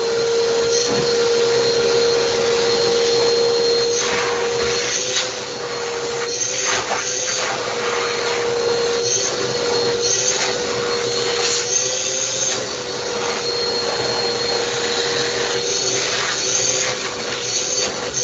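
Shop vacuum running with a steady motor whine and a rush of air, with a few knocks and clatters along the way.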